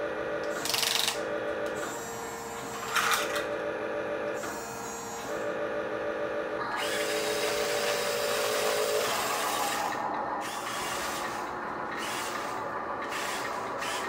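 Small electric drive motor and gears of a radio-controlled CAT 745 articulated dump truck toy whining in short runs, starting and stopping as it is driven. There are two brief louder clatters about one and three seconds in.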